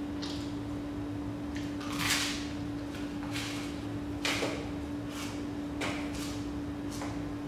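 A person eating noisily by mouth, with a string of short wet smacking and slurping bursts about once a second, the loudest about two seconds in and just past the middle. A steady low hum runs underneath.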